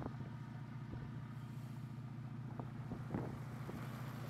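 A steady low machine hum, like an engine or motor running, with a few sharp clicks and taps over it, the loudest about three seconds in.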